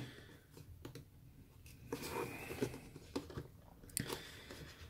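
Fingers handling a small cardboard product box, prying at its end tab and folding back the flap: faint rustling with a few soft clicks and taps, the sharpest about four seconds in.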